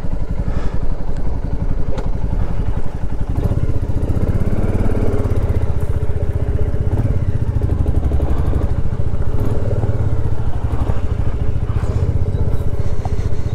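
Royal Enfield Classic 350's single-cylinder engine running with an even exhaust beat as the bike rides off slowly over gravel.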